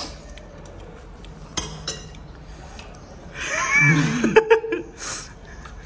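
A metal spoon clinks on a ceramic plate a couple of times. About halfway through, a man gives a drawn-out wordless vocal reaction, with a few more clinks near its end.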